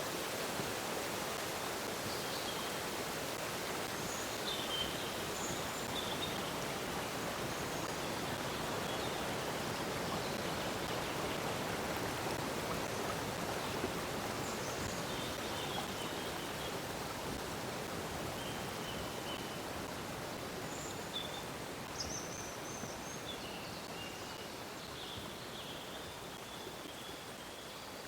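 Flowing water running with a steady rush, growing slightly quieter toward the end, with short bird chirps scattered throughout.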